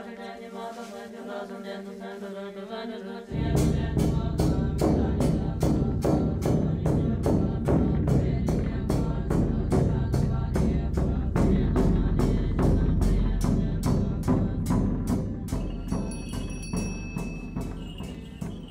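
Tibetan Buddhist ritual chanting by nuns, then a large ritual drum beaten in an even run of about three strokes a second from about three seconds in. High steady ringing tones join the drumming near the end.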